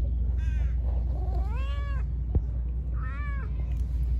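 Tabby cat meowing three times: a short meow, a longer rising-and-falling one, then another short meow. A single sharp click comes between the second and third.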